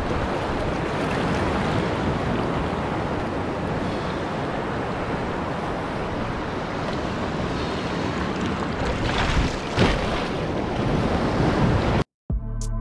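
Shallow ocean surf washing around a person wading beside a kayak, with wind buffeting the microphone, and a couple of sharper splashes about nine seconds in. The sound cuts off abruptly near the end.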